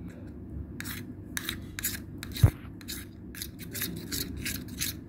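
A spoon stirring a thickening mixture of glue, paint and detergent water in a metal tumbler as it turns into slime: repeated wet scraping strokes, about two to three a second, with one sharp knock about two and a half seconds in.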